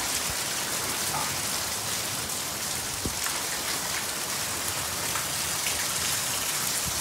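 Heavy rain pouring down in a thunderstorm: a steady, even hiss with a few scattered drip ticks.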